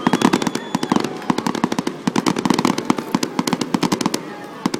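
Fireworks crackling: a rapid, dense run of sharp pops, many each second, easing slightly toward the end.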